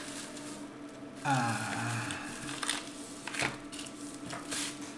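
Bubble-wrap packaging rustling and crinkling as it is pulled open by hand, with a few sharp crackles. A short murmured voice comes in about a second in.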